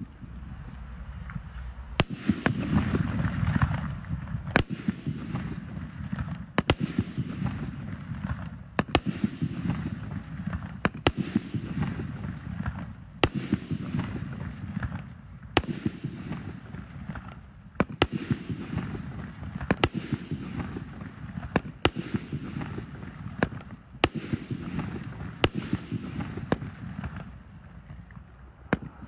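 Jiangfeng 'The Wolf' 2-inch 48-shot fireworks cake firing: shells launch and burst overhead with sharp bangs about every two seconds, with smaller pops and a low rumble between them.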